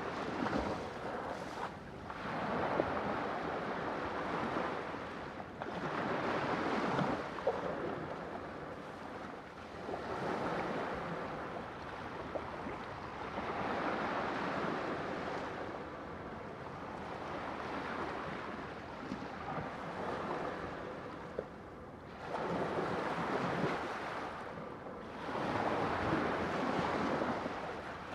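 Sea waves breaking and washing ashore, a steady surf hiss that swells and ebbs every few seconds.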